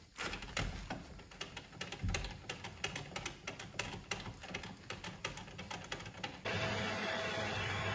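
Rapid, irregular clicking and ticking of a mini lathe's carriage handwheel and rack-and-pinion gearing being cranked by hand to position the boring bar. About six and a half seconds in it gives way abruptly to the lathe running with a steady hum.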